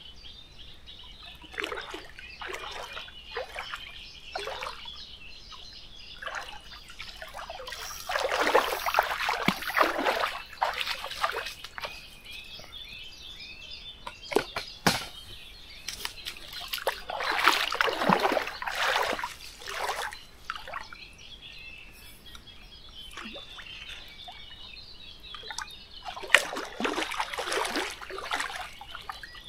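Water splashing in the shallows in three longer bouts with smaller splashes between, with birds chirping faintly.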